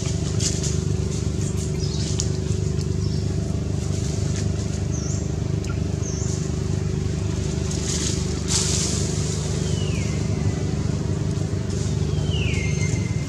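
A steady low mechanical drone, like an engine running, with light crackling rustles over it. A few brief high calls sound, two of them sliding down in pitch near the end.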